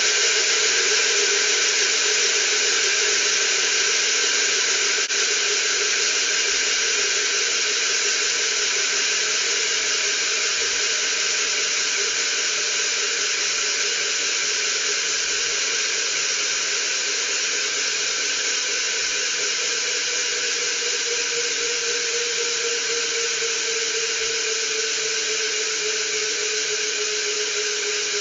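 Superstar Components Trizoid rear hub with 120 engagement points freewheeling on a spinning rear wheel. Its clicks come so fast they merge into a steady hissing buzz, which fades slowly and drops a little in pitch as the wheel coasts down.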